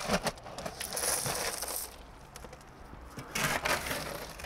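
Shovels scraping into crushed stone in a wheelbarrow and tipping it out, the gravel rattling as it pours, in several separate scoops.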